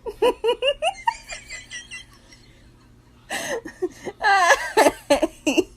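High-pitched laughing: a quick run of short giggles right at the start, then a louder burst of laughter about three seconds in.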